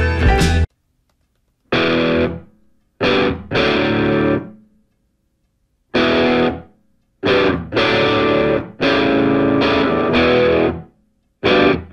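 Music: distorted electric guitar playing chords in short separate phrases, each ringing out and fading, with silent gaps between them.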